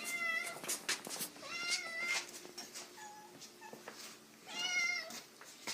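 Domestic cat meowing repeatedly: three clear meows, one at the start, one about two seconds in and one near the end, with a few fainter short mews between them. Small sharp clicks or taps sound now and then.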